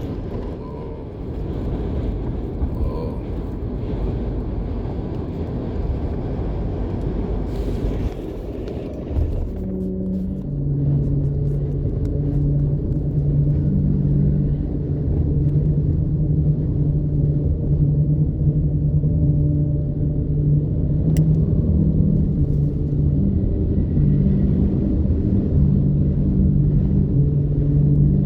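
Vehicle interior noise while crossing a bridge in high wind: a heavy wind-and-road rumble that settles about ten seconds in into a lower rumble with a steady low hum.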